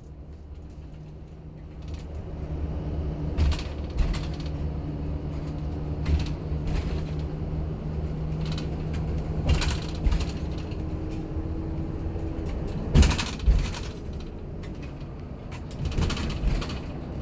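A steady mechanical hum with a low rumble, broken by scattered knocks and clicks; the hum fades out about twelve seconds in, and the loudest knocks come just after.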